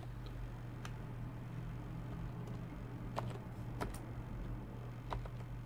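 A handful of sparse, sharp clicks from a computer mouse and keyboard as a text note is cut and moved, over a steady low hum.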